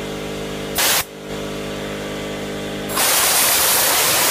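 Shop vacuum running with a steady hum while a compressed-air blow gun blasts air into the outboard's water jacket through a zinc port. There is a short blast of hiss about a second in, then a longer, louder blast from about three seconds in. This is flushing salt buildup out of the cooling passages.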